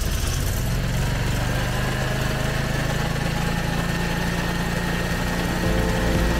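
Generac 14 kW air-cooled standby generator's engine running at a steady speed.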